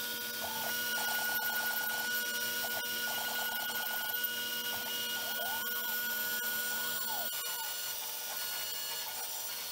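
DeWalt compact router on an X-Carve CNC spinning at high speed and milling through acrylic sheet, a steady high whine. Over it, the machine's stepper motors give shorter tones that start and stop and glide up and down in arcs as the head traces the round cutouts.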